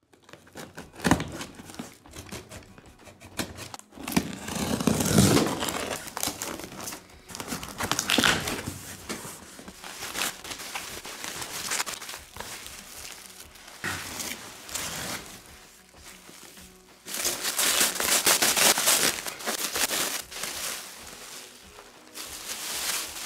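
Cardboard box being opened and its packing handled: irregular rustling and crinkling of fleece wrap and plastic film, loudest about four to six seconds in and again from about seventeen seconds.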